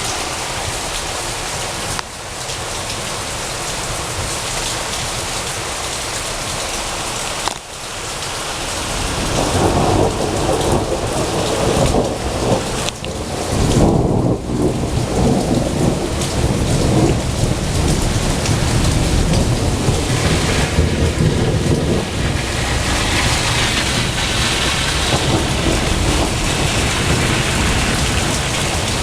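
Steady heavy rain, with a long roll of thunder that builds about eight seconds in and rumbles on for most of the rest.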